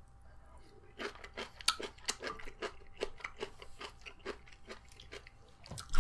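Crunchy food being chewed close to the microphone: a run of quick, irregular crunches and clicks that starts about a second in.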